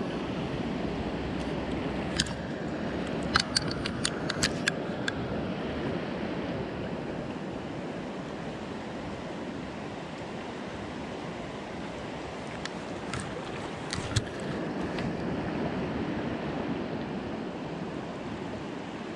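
A gravel-bed mountain stream flowing, a steady rush of water. A few short sharp clicks break through it about two to five seconds in and again around thirteen to fourteen seconds.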